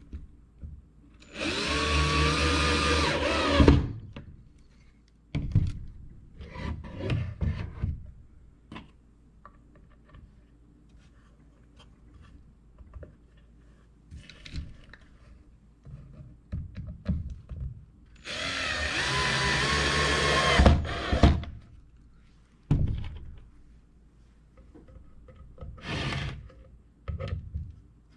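Power drill running into wood in two bursts of two to three seconds each, its whine rising slightly in pitch during each run. Between the bursts come scattered knocks and clatter of wooden boards and tools being handled.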